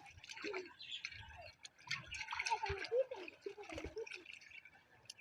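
River water splashing and dripping in irregular small bursts, with scattered light clicks.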